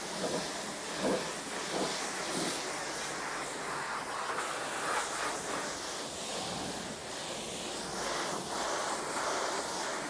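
High-pressure water jet from a self-service car wash wand spraying a car's body, a steady hiss with small surges.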